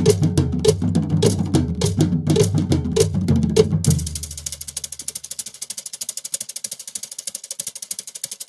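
Soundtrack music with a steady drum beat and a deep bass line. About four seconds in, the drums and bass drop out, leaving a fast, even high ticking rhythm that gets quieter.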